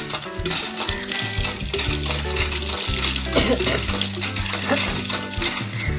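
Water gushing and splashing from a village hand pump's spout onto a person washing under it and onto the wet ground, a steady hiss, with background music of held bass notes underneath.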